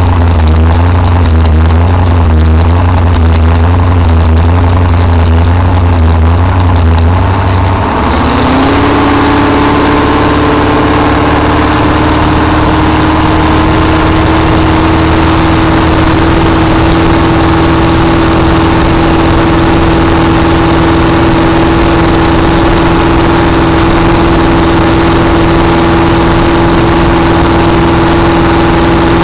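Supercharged Ford engine in a blown flat-bottom boat running hard. For the first eight seconds its note surges up and down about once a second, the blower surge. It then climbs smoothly in pitch and holds a steady, even note.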